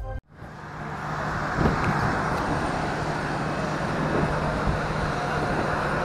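Background music cuts off just after the start, giving way to steady airport apron noise: aircraft engines and ground equipment running as a constant rush with a low steady hum under it.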